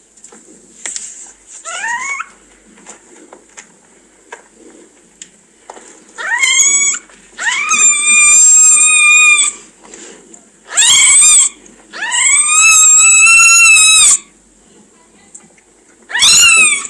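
Day-old newborn kittens crying: a few faint rising squeaks, then five loud, high-pitched mews that slide up and are held, the longest about two seconds.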